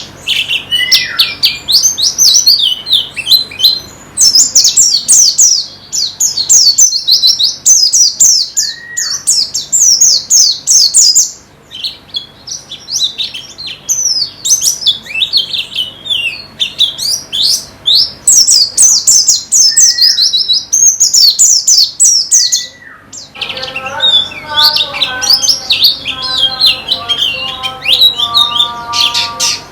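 White-eyes (pleci) singing: long runs of rapid, high-pitched twittering notes with short gaps, broken by a few separate calls that rise then drop. A little over 20 seconds in, lower, steadier repeated notes join the twittering.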